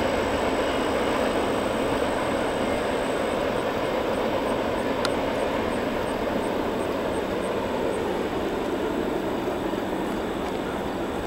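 CSX freight train's cars rolling away on the track: a steady rumble of steel wheels on rail that slowly fades as the train recedes.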